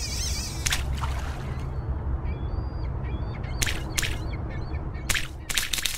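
Sound design for an animated logo sting: a steady low rumble with short bird-like calls and several sharp noisy hits.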